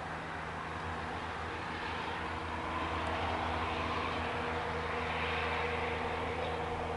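A steady low mechanical hum with a hiss over it, growing a little louder about three seconds in.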